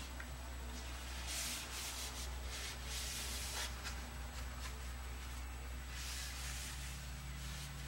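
A paper towel rubbing gear oil along a solid steel rod, in several short wiping strokes with pauses between them, over a low steady hum.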